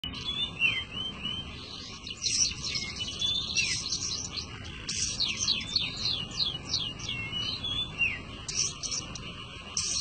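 Long-tailed shrike (pentet) singing in a cage: a varied, rapid song of chattering notes and quick falling whistles, delivered in bursts with short pauses.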